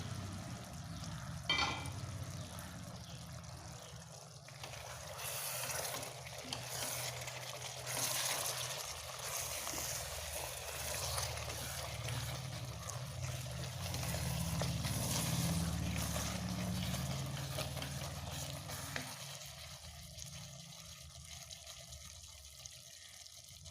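Chicken and green plantain pieces being stirred with a spoon in a cooking pot, wet scraping and sizzling as the chicken releases its juices, over a steady low hum. The stirring is heaviest from about five seconds in and eases off near the end.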